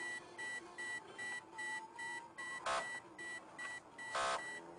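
A high electronic beep repeating about three times a second inside a pursuing police car, with two short, loud, harsh blasts about two and a half and four seconds in.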